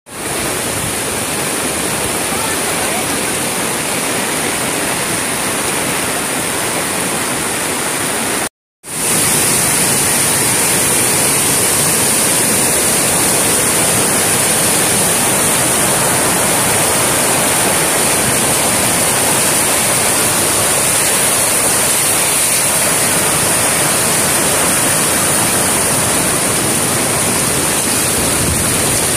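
Flooded mountain stream in spate, a steady loud rush of churning floodwater pouring over a road. The sound cuts out for a moment about a third of the way through, then resumes.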